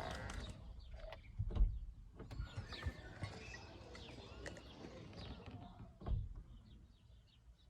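Faint bird chirps over a low rumble, with two knocks, about one and a half seconds in and about six seconds in.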